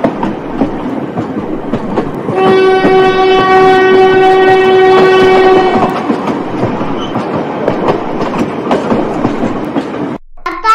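Train running on the rails with a rumble and clickety-clack of the wheels, and one long steady horn blast from about two to six seconds in. The sound cuts off suddenly near the end.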